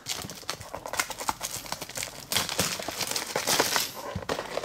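Funko Mystery Minis blind-box packaging being handled and opened: an irregular run of crinkling, rustling and small tearing crackles.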